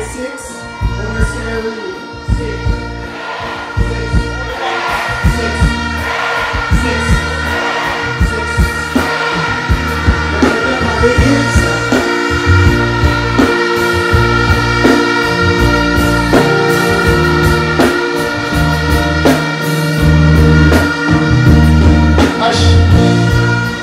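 Live stage music played loud through a large outdoor PA: a backing track with a steady beat and heavy bass, with a man singing over it into a microphone.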